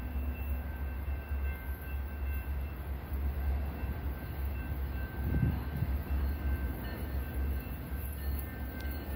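Low, steady rumble of an approaching train of EMD GP-series ('Geep') diesel locomotives, briefly swelling about halfway through.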